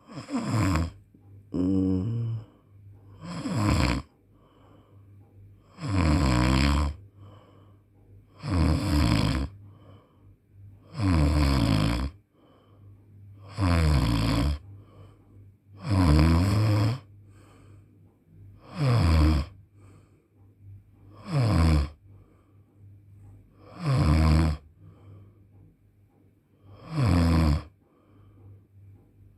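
A person snoring in sleep: a snore about every two and a half seconds, each lasting about a second and dropping in pitch, over a faint steady hum.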